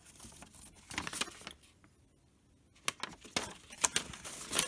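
Folded paper instruction leaflets rustling and crackling as they are handled. A pause of about a second midway, then busier crackling toward the end.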